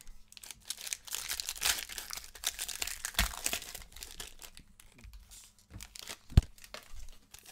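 Plastic foil wrapper of a baseball card pack being torn open and crinkled by hand, with one loud thump about six and a half seconds in.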